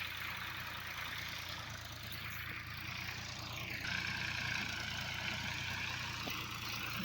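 An engine running steadily: a low drone with a higher whine above it that shifts in pitch about halfway through.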